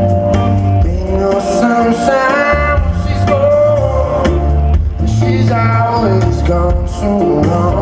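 Live band playing a slow soul-blues song through a concert PA: electric guitar, bass and drums under a bending, wavering lead melody, heard from the audience.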